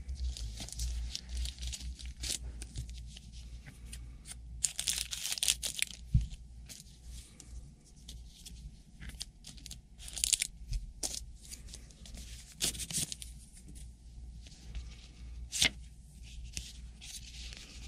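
Trading card packs being torn open and their wrappers crumpled, in several short rustling bursts with sharp clicks of cards being handled in between.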